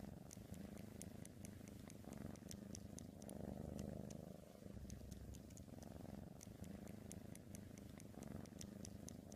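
Domestic cat purring softly close up: a low rumble that swells and fades with each breath, with faint ticks over it.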